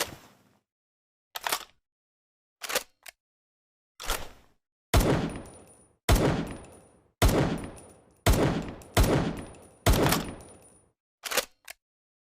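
Makeshift sound effect imitating M1911 pistol shots: about a dozen sharp bangs, some single and some in quick pairs. The loudest run, in the middle, comes about one shot a second, each with a long trailing decay.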